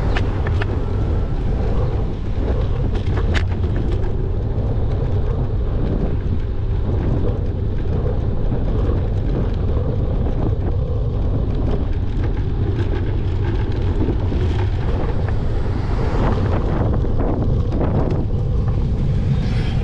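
Wind buffeting the microphone of a moving bike: a steady low rumble.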